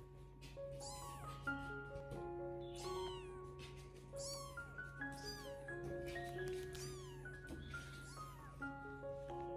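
Newborn kitten mewing, several short high-pitched calls that fall in pitch, over soft background music of held notes.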